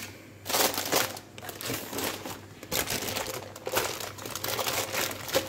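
Sheets of baking paper crinkling and rustling in irregular bursts as they are handled around a rolled-out sheet of shortcrust pastry.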